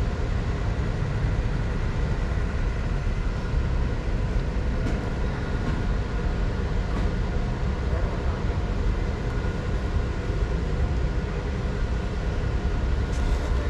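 Steady low rumble of a large store's background noise, with a faint steady hum over it.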